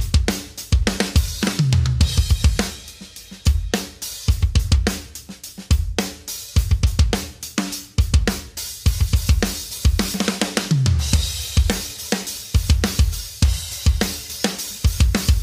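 Drum kit alone, with no other instruments, playing a steady rock beat of kick drum, snare and hi-hat with cymbal crashes. Low drum tones drop in pitch as a short fill about a second and a half in and again near eleven seconds.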